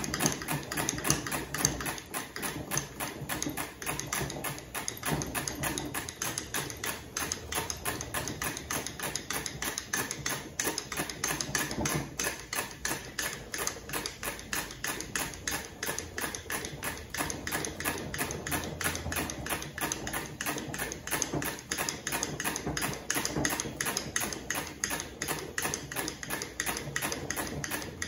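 Hand-cranked friction apparatus for the mechanical equivalent of heat being turned quickly and steadily, giving a fast, even run of mechanical clicks. The crank drags a cord around a metal cylinder, heating it by friction.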